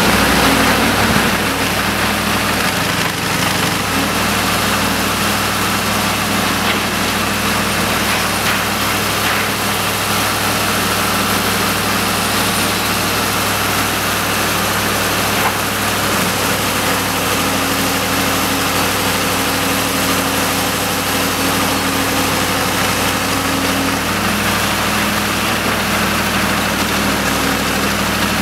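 Diesel engine of a Menck M154 cable excavator running steadily close by, a low, even drone.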